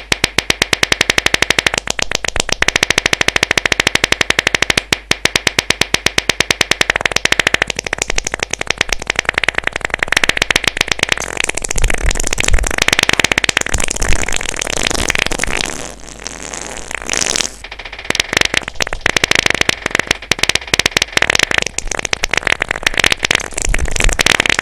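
A long, rapid-fire string of comic fart and pooping sound effects, many sputtering bursts a second, getting rougher and more irregular about halfway through.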